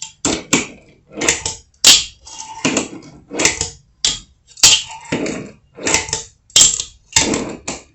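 Fingerboard working a wooden ramp: about a dozen sharp wooden clacks from tail pops and landings, with the small wheels rolling on the wood between them, as ollies are tried over and over.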